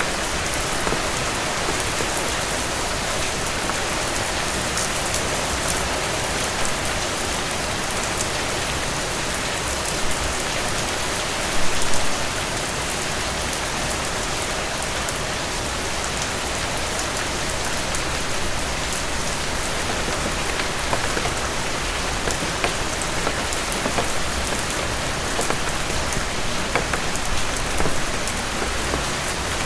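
Steady, heavy rain falling, with many separate drops ticking on a surface, and a brief louder burst about twelve seconds in.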